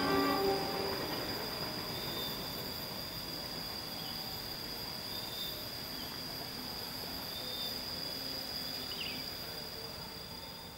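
Passenger train rolling away round a curve, its wheels squealing briefly at the start, then the running sound slowly fading. A steady high insect drone sits behind it.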